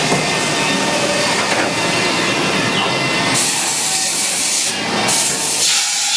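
Kitamura Mycenter HX400iA horizontal machining center running a machining cycle, with cutting oil splashing and spraying inside the enclosure as a steady loud noise. A hiss joins a little past halfway, stops briefly, then comes back.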